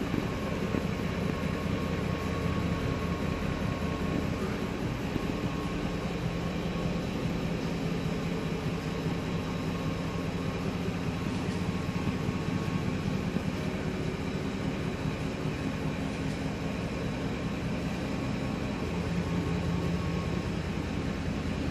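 Ford F-150's 5.4 Triton V8 idling steadily with an even low rumble.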